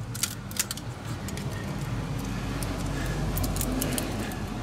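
Scattered sharp clicks and crackles of hands working at a car engine's wiring harness, cutting back and pulling apart the wire loom tape around the wires. The clicks come in two clusters, one just after the start and one about three-quarters through.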